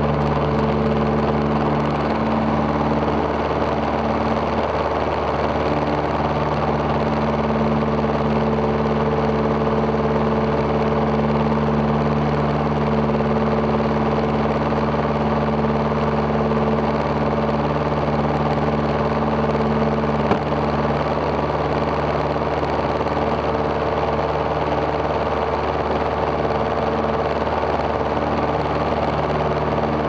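Single-engine propeller airplane's piston engine running steadily at takeoff power through the takeoff roll and initial climb. A single brief thump cuts through it about twenty seconds in.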